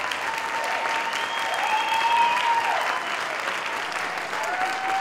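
An audience applauding steadily, with long drawn-out cheering cries over the clapping, one in the first half and another starting near the end.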